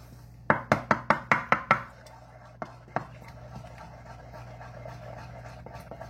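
A utensil knocking against a mixing bowl: a quick run of about seven sharp taps, about five a second, then two single taps.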